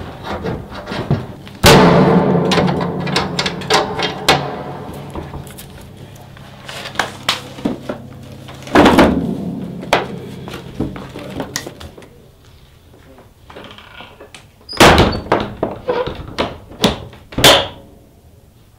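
Heavy doors slamming shut, four loud slams with smaller knocks between them; the first two leave a low ringing hum that dies away over a few seconds.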